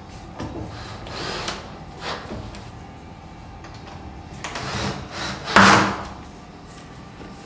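Wooden headboard of a wall bed knocking and scraping against the cabinet side as it is worked into place: a few short rubs and knocks, then a loud wooden thump near the end.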